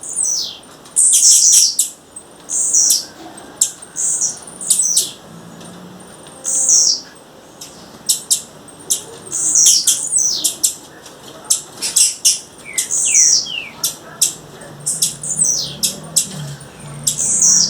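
Blue-black grassquit (tiziu) calling: short, high, downward-sweeping chips repeated roughly once a second, mixed with sharp clicks.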